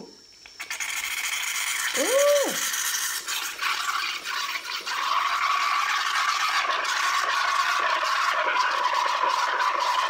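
De'Longhi espresso machine's steam wand hissing as it froths milk in a plastic tumbler, starting about half a second in. From about halfway a steady high squeal joins the hiss.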